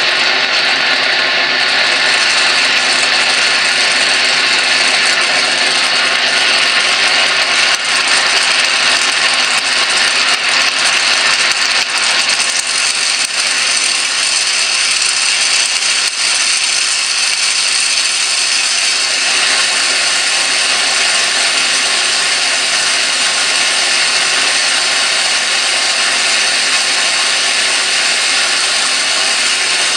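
Electric arc discharge in salted water, a steady loud crackling buzz with a hum under it.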